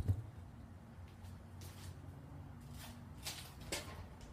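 A few faint clicks and knocks of the garage door opener's trolley and release latch being handled as the door is reconnected to the opener, over a low steady hum.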